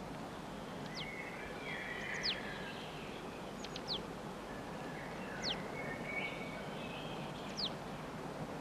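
Chickadee calling: a handful of short, high notes that drop quickly in pitch, spaced a second or two apart, over steady background noise.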